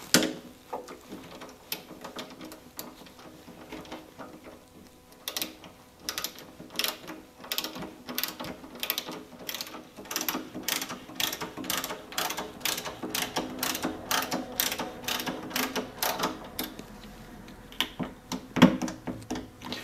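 Ratcheting screwdriver with a T20 Torx bit clicking as it loosens screws, a long run of sharp clicks at about two to three a second.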